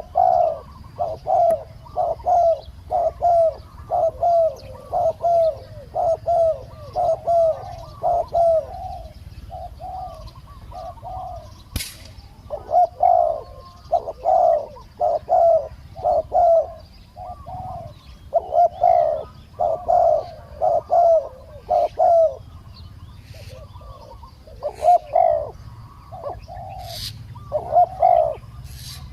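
Spotted doves cooing: runs of low, rhythmic coos, a little under two notes a second, broken by pauses about ten and twenty-three seconds in. A single sharp click comes about twelve seconds in.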